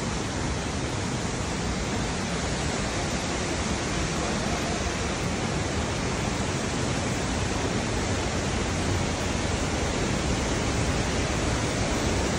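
Mountain stream running steadily, an even rushing wash of flowing water.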